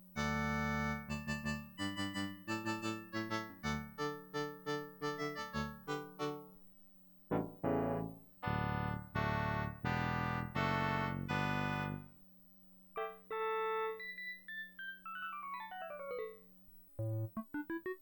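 Kawai FS640 arranger keyboard playing chords and melody notes. After a short pause near the middle it plays a falling run of quick notes, then starts a rising run near the end.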